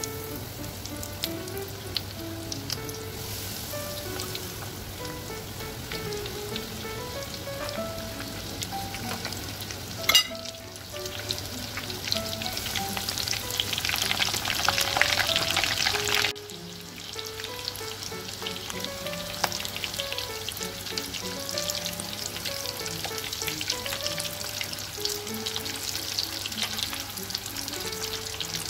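Breaded stuffed chicken drumsticks frying in hot oil in a pan: a steady crackling sizzle, louder for a few seconds past the middle. Near the end a spoon turns them in the oil. Soft background music plays underneath.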